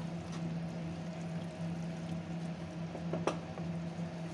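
Spatula stirring thick, wet keema curry in an aluminium pressure cooker over a steady low hum, with one short knock about three seconds in.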